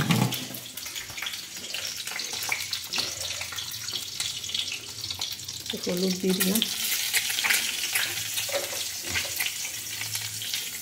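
Whole boiled eggs frying in hot oil in an aluminium kadai: a steady sizzle, with a metal spatula clicking and scraping against the pan.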